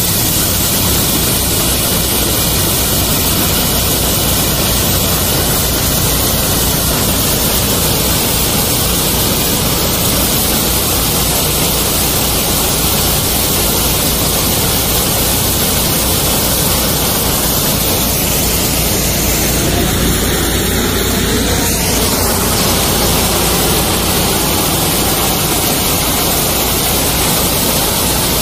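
High-pressure water jet hissing loudly and steadily from the open hose end of an engine-driven high-pressure washer running on both of its twin engines, with a low engine hum beneath the spray.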